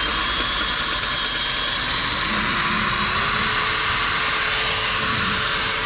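Electric drill driving a long extension bit up the exhaust pipe into a clogged catalytic converter, grinding out its honeycomb core with a steady harsh hiss. The drill motor's whine rises about two seconds in as it speeds up, then holds steady.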